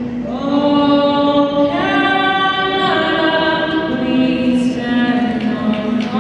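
A girl singing solo into a microphone over the arena's PA, holding long notes that change pitch every second or so, in the manner of a national anthem sung before a hockey game.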